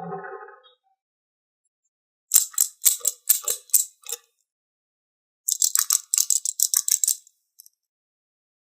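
Two bursts of quick hard clicking rattle, the second denser than the first, after the fading end of a roar.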